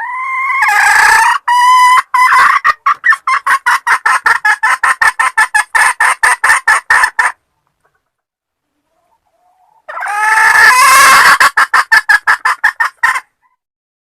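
Junglefowl hen calling in two bouts of rapid clucks. Each bout opens with a drawn-out rising note and runs into a fast string of short clucks; the first lasts about seven seconds, the second about three, after a pause. The call of a hen soliciting mating.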